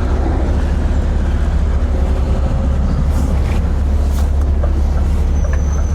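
Lorry's diesel engine running steadily with a deep, even low rumble, with a few faint clicks in the second half.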